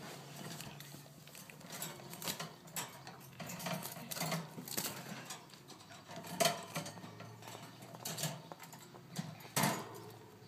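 Irregular light clicks, taps and scratchy rustles from a wire parakeet cage, with two sharper knocks, one midway and one near the end.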